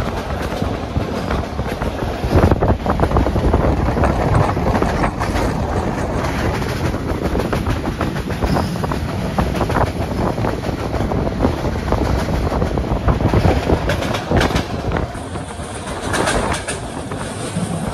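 Passenger train running along the line, its wheels clicking and clattering over the track under a steady rumble and rush of rolling noise.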